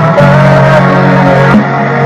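Band music: a guitar melody over steady held bass notes, with no singing.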